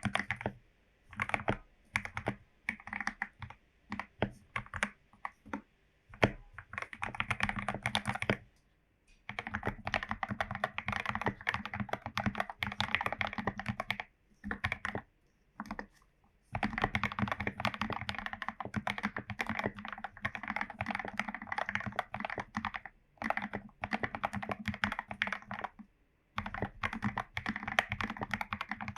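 Royal Kludge RK84 mechanical keyboard, foam- and tape-modded, with lubed Gateron Yellow linear switches, being typed on. Runs of fast typing are broken by a few short pauses, and the first few seconds have more scattered, separate keystrokes.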